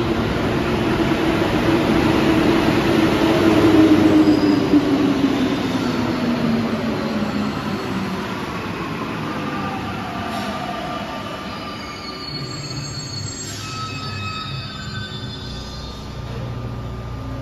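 A rubber-tyred Paris Métro line 14 train pulls into the station and brakes to a stop, its whine falling steadily in pitch over the first several seconds. It then stands at the platform with a steady hum.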